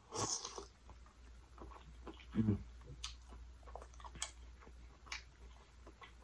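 Close-up mouth sounds of someone eating sauce-coated lobster tail: a wet sucking slurp at the start, then chewing with scattered sticky lip smacks and clicks, and a brief low hum about two and a half seconds in.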